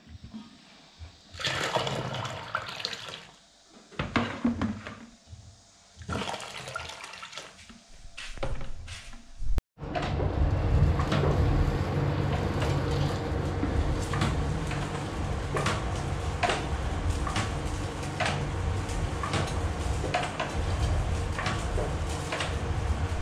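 Irregular short rustles and knocks for the first ten seconds or so. Then a wood fire in the firebox of a brick kitchen stove burns with a steady low rush and frequent crackles as sticks and straw are fed in to heat a wok of soy milk.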